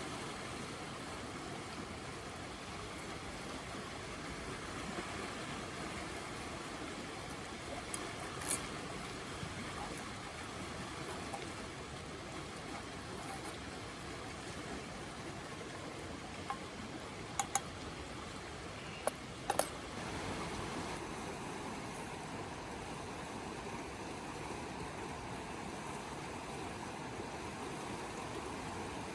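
Wood fire burning in a small fire stand over a steady rushing background, with a few sharp crackling pops, most of them bunched together a little past the middle.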